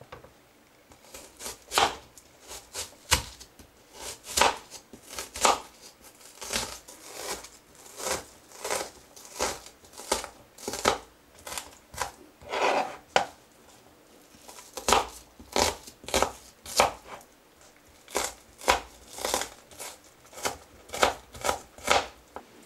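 Kitchen knife dicing onions on a cutting board: a steady string of crisp cuts, roughly one or two a second, each stroke tapping the board, starting about a second in.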